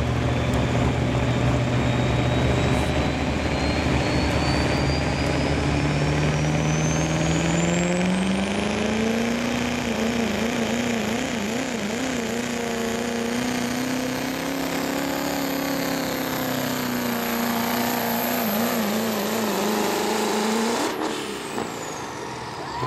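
Chevrolet Silverado's turbocharged Duramax diesel engine under full load pulling a sled. It climbs steadily in revs over the first nine seconds while a high turbo whistle rises with it. It then holds at high revs, wavering in pitch twice, and cuts off sharply about two seconds before the end.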